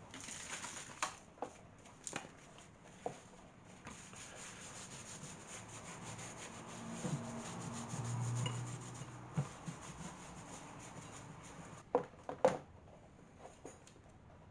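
Light rubbing and scraping with scattered small knocks and clicks, the loudest knocks coming in a quick cluster near the end.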